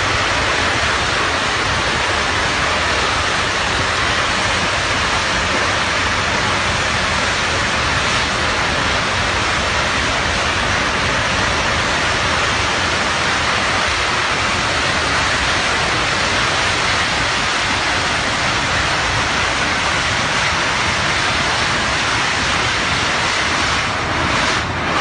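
Drilling-rig blowout fire: gas jetting out of the well out of control and burning, a loud, steady rushing noise that wavers a little near the end.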